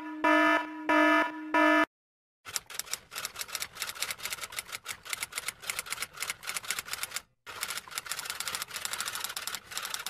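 An electronic alarm sounds a few short, steady-pitched beeps. After a brief pause, typewriter keys clatter in rapid runs of strikes, with a short break about seven seconds in.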